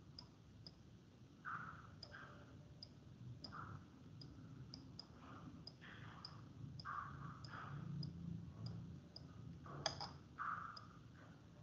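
Faint, irregular clicking, about two clicks a second, with short scratchy rubs in between: a computer mouse being clicked and dragged to draw lines on screen.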